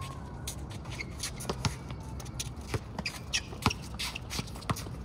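A basketball bouncing on an outdoor asphalt court, with the scuff of sneakers as players run and shuffle. The bounces come as scattered, irregular thuds.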